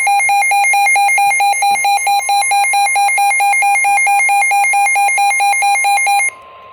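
Weather radio sounding a severe thunderstorm warning alert: a loud pulsing alarm, about five beeps a second, over a steady higher tone. The beeping stops shortly before the end, leaving the steady tone alone and quieter.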